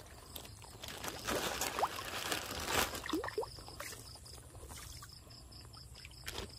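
Small catfish splashing and slapping at the surface of a shallow feeding pond, with a cluster of quick splashes and trickling water about one to three and a half seconds in, then calmer lapping. The fish are stirred up by feed being scattered.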